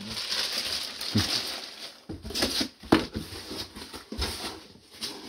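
Packaging crinkling and rustling as it is handled, with a few short knocks scattered through it.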